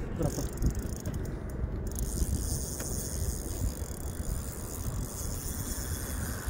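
Ultralight spinning reel being cranked as fast as possible, its gears whirring, as line is taken in on a big pike.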